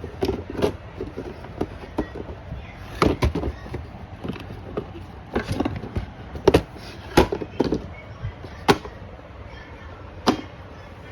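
Toy fridge's hard plastic parts being handled: about a dozen irregular sharp clicks and knocks, several loud ones between about three and nine seconds in.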